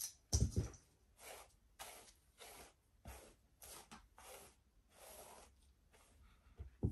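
Hairbrush drawn repeatedly through long hair: a run of soft brushing swishes, about two a second, with a louder knock about half a second in.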